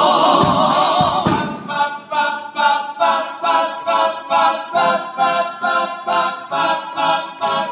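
All-male carnival chorus singing a cappella in harmony: a loud held chord with vibrato that breaks off about a second and a half in, then short clipped sung syllables in a steady beat of about two a second.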